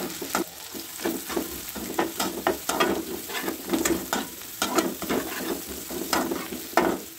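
Sliced onions with ginger and garlic sizzling in hot oil in a wok, while a metal slotted spatula stirs and scrapes them against the pan in repeated strokes, about twice a second. They are being fried until the raw smell goes.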